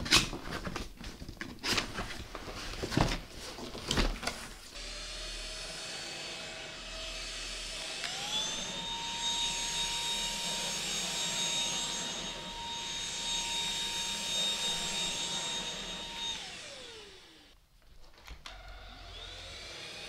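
A few sharp knocks and clatters of handling at first. Then an Ultenic U10 cordless stick vacuum's motor starts with a high whine, rises in pitch, and runs steadily with the hiss of suction on carpet. Near the end it winds down with a falling whine, goes briefly quiet, and starts up again.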